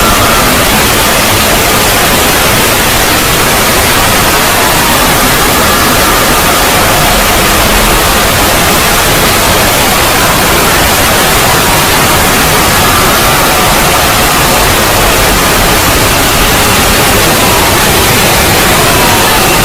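Loud, steady static hiss like white noise, with faint tones wavering underneath; this is a synthetic 'void' sound effect.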